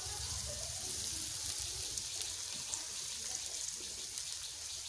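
Chopped onions frying in hot oil in a kadai: a steady sizzle.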